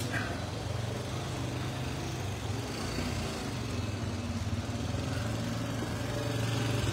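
The small motorcycle engine of a three-wheeled cargo motorcycle running steadily, a low, evenly pulsing hum that grows a little louder near the end.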